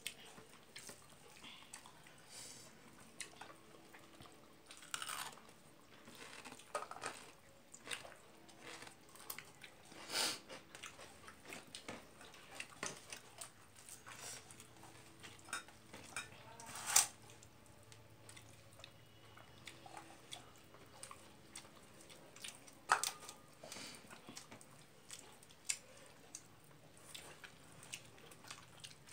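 Eating rice by hand from a ceramic plate: fingers mixing and scraping rice against the plate, with chewing, and scattered sharp clicks and taps on the plate, the loudest about two-thirds of the way through.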